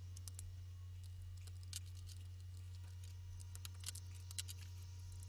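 A low, steady hum with many faint, scattered small clicks and ticks.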